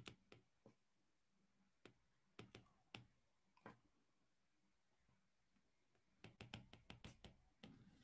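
Faint clicks and taps of a stylus on a tablet screen during handwriting. A few scattered taps come first, then a quick run of them near the end.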